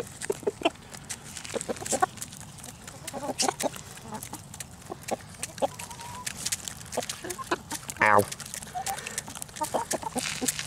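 Several chickens pecking seed-and-grain treats out of a hand close up, making many quick sharp pecking clicks mixed with clucks. A short, loud call about eight seconds in is the loudest sound.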